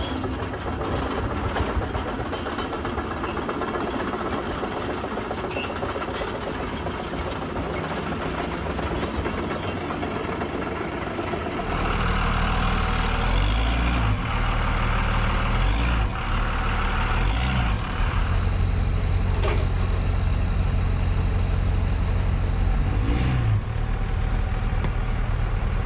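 Diesel engine of an excavator running steadily. About halfway through it gets louder and heavier, working under load with a faint hydraulic whine rising and falling and an occasional clank.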